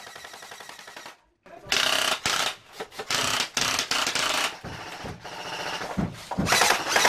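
Airsoft guns firing in long, rapid full-auto bursts, starting about a second and a half in and again near the end.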